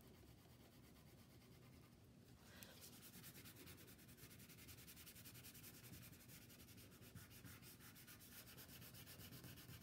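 Wax crayon rubbing on paper in quick, even back-and-forth strokes as red is colored over yellow to mix orange. It is faint, and the strokes become steady about two and a half seconds in.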